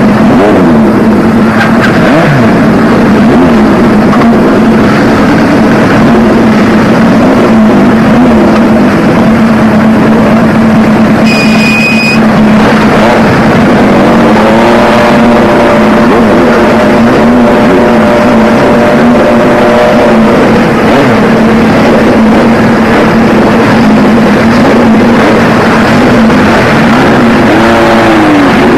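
Motorcycle engines running, with the revs rising and holding for several seconds mid-way and rising again near the end as a bike moves off. A short high beep sounds about twelve seconds in.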